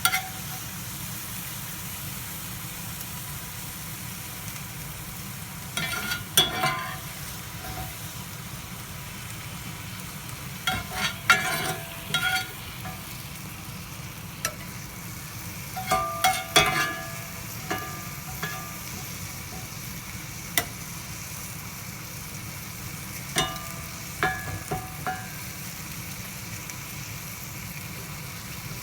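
Sliced steak sizzling steadily in butter on a hot sizzling plate as onions and mushrooms are spooned on top. Four bursts of sharp clinks, a metal utensil knocking against the plate, come about 6, 11, 16 and 23 seconds in.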